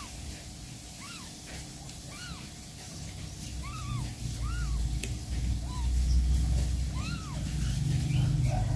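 Newborn kitten mewing, thin high cries that each rise and fall, about once a second. A low rumble builds in the second half.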